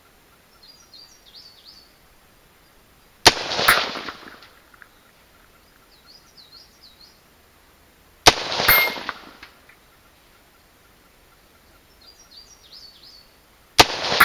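AR-15 rifle with a 16-inch .223 barrel fired three times, about five seconds apart. Each shot is a sharp crack followed a fraction of a second later by a second sharp report and a fading echo.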